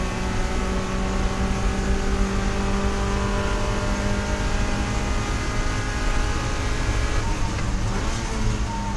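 Spec Miata race car's four-cylinder engine running under load, its pitch holding nearly level for several seconds and then shifting about eight seconds in.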